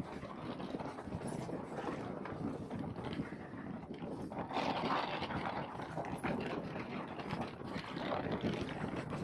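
Wind buffeting the microphone and water rushing and slapping against an aluminum bass boat's hull as it runs through rough waves, louder for a moment about four and a half seconds in.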